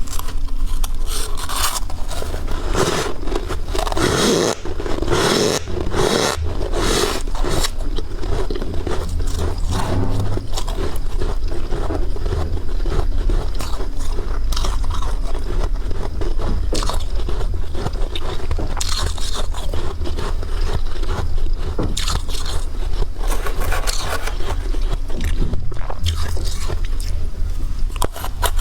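Freezer frost being bitten and crunched, with scraping, in a dense, irregular run of crunches.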